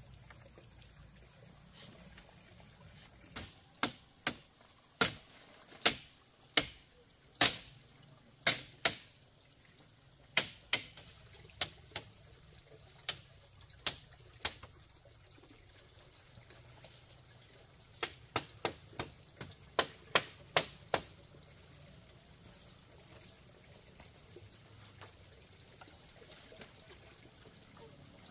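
A series of sharp knocks or strikes, each ringing briefly, about twenty in all: an irregular run over the first half, then a quicker cluster of seven or eight about two-thirds through.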